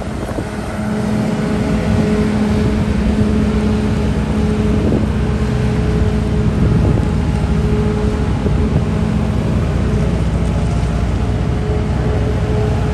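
Liebherr A934C's diesel engine running steadily, a continuous low rumble with a steady hum on top.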